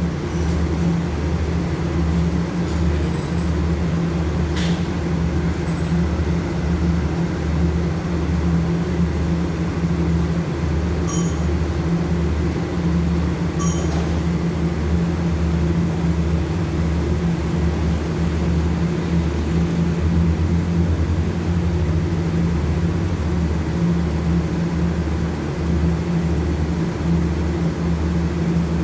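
Diesel engines of a stationary express passenger train running at idle, a steady low drone with a slight pulse, and a few faint clicks about 11 and 14 seconds in.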